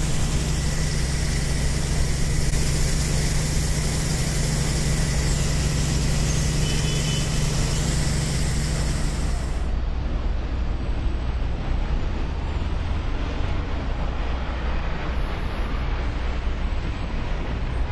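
Dubbed-in sound effect of a large engine running steadily, a continuous rumble with hiss over it. About ten seconds in the sound changes: the hum and high hiss drop out and a plainer rumble carries on.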